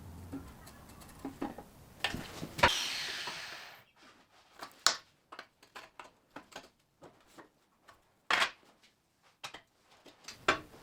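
Scattered knocks and clicks of handling in a workshop, with one sharp knock followed by about a second of fading hiss and another loud knock later.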